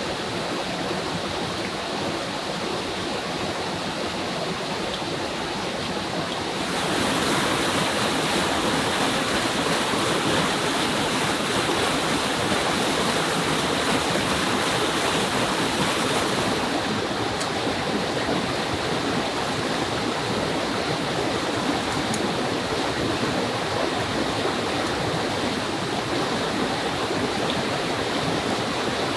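Rushing water of a rocky jungle stream cascading over boulders, a steady rush. From about seven seconds in it grows louder and hissier for about ten seconds, then settles back.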